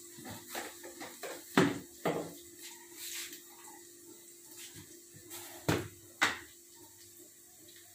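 Kitchen storage containers being handled: plastic jars and a lid knocked and clunked against a counter and a shelf, in two pairs of sharp knocks, one pair about a second and a half in and another near six seconds, with a few lighter taps between.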